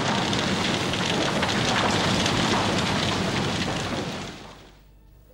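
A large fire being doused by fire hoses: a steady rushing hiss of spraying water and burning with crackling through it. It fades out about four seconds in.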